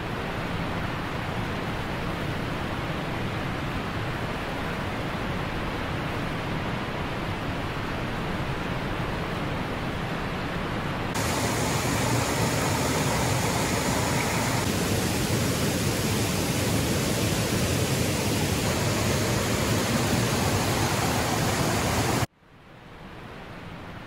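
Holy Linn waterfall pouring into its pool, a steady rushing of water. About eleven seconds in it cuts to the burn running over rocky rapids, a little louder, and near the end it drops abruptly to a quieter rush.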